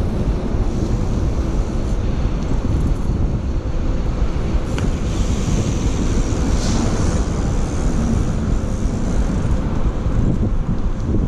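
Wind rushing over the microphone of an action camera on a moving BMX bike, over a steady low rumble of the tyres rolling on paving slabs.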